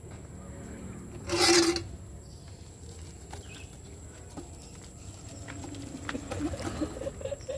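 Homemade can cannon (a tube of taped-together cans) firing once about a second and a half in: a single loud, rushing blast lasting about half a second.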